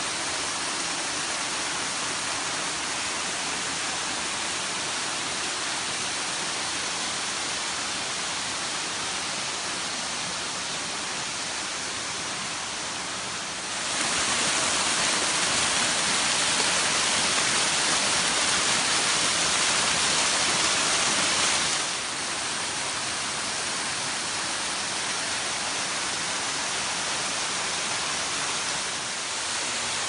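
Small waterfalls splashing over rocks into a pool: a steady rush of falling water, louder and brighter for about eight seconds in the middle, when the falls are nearest.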